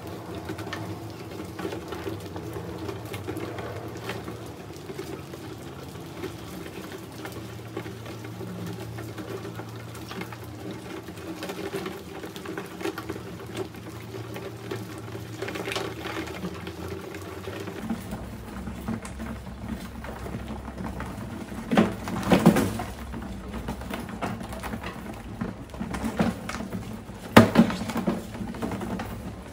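A crowd of mice scrabbling and scratching over a plastic tub and its thin plastic-sheet lid, with a few louder knocks of small bodies on the plastic in the second half, the loudest near the end. A low steady hum sits under the first half and stops a little over halfway.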